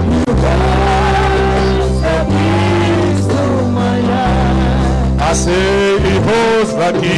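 Church music with singing: a voice holding long, bending sung lines over steady bass notes that change every second or so.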